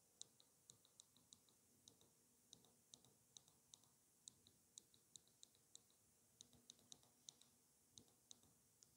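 Near silence broken by faint, irregular high-pitched ticks, two or three a second.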